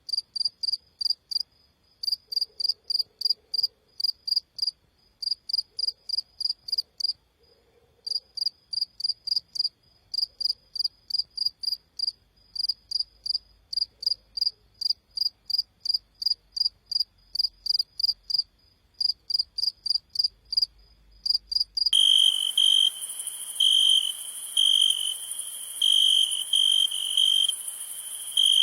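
Field crickets chirping: short high chirps at about three to four a second, in runs broken by brief pauses. About 22 seconds in, the sound switches abruptly to a louder, lower-pitched cricket trill in stuttering bursts over a high hiss.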